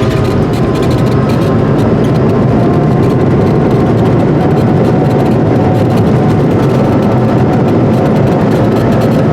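Jet engine noise inside an Airbus A220-100's cabin as it lands: a loud, steady roar from its Pratt & Whitney PW1500G geared turbofans and the airframe, with a faint engine whine held steady over it.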